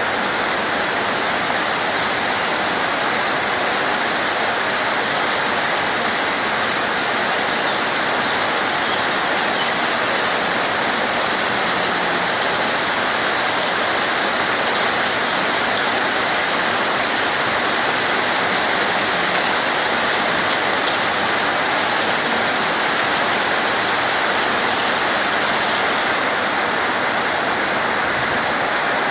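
Steady, dense rainfall: an even, unbroken hiss of rain, with one short tick about eight seconds in.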